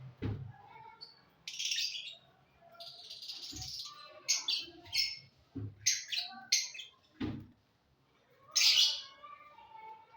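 Pet birds chirping and squawking in short, irregular high-pitched bursts, with a few soft low thumps in between.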